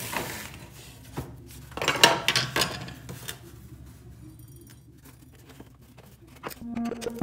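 Metallic clattering and knocking as the sheet-metal reflector panel of an electric insect killer is handled and pulled out, in a few separate bursts, the loudest about two seconds in. Background music begins near the end.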